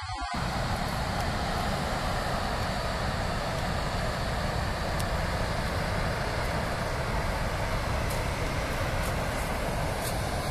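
Steady rushing of floodwater pouring through the open spillways of the Dobczyce dam on the Raba river, an even, unbroken noise at high discharge.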